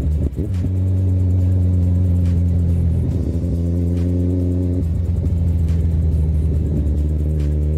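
Kawasaki Z1000's inline-four engine running at steady cruising revs, its pitch shifting in steps a few times.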